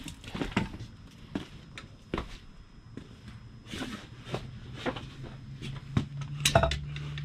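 Scattered light clicks and knocks of hand tools being handled, with shuffling steps, while working on a flywheel's bolts; a low steady hum comes in about five seconds in.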